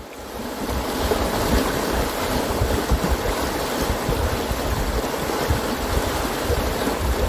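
A snowmelt-fed river running full over rapids: a steady rush of water that swells up over the first second and then holds, with a low, gusty rumble underneath.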